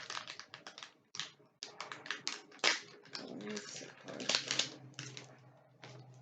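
Gift wrapping paper being torn and crumpled as a present is unwrapped: a run of irregular crackling rips and rustles.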